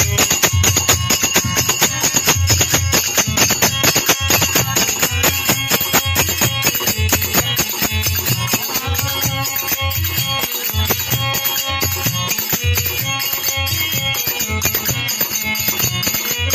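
Devotional bhajan music: small hand cymbals clash in a fast, even beat over a regular two-headed barrel drum beat, with a harmonium holding notes through the second half.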